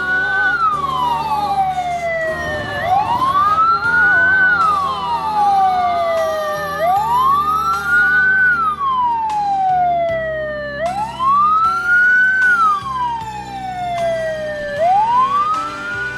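A siren wailing in slow rising-and-falling sweeps, one full cycle about every four seconds.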